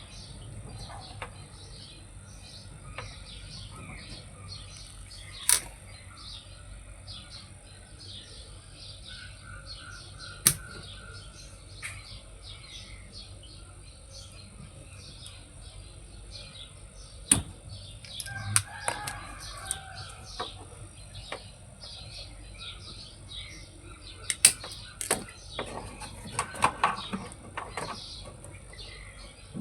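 Small birds chirping over and over against a steady high-pitched whine, with a handful of sharp knocks several seconds apart.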